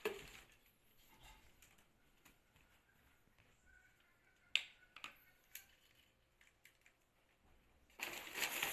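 A few sharp, light clicks and taps of handling against a quiet background, the loudest about halfway through, then a louder stretch of rustling near the end.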